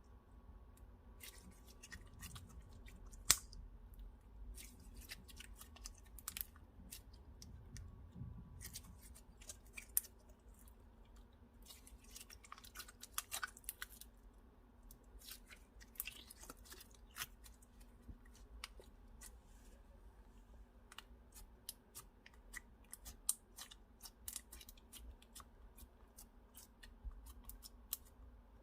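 Slime being worked by hand, giving off many irregular sticky clicks and crackling pops, a few sharper snaps among them.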